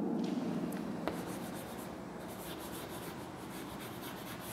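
Chalk writing on a chalkboard: faint scratching of the chalk stick across the board, with a couple of light taps in the first second.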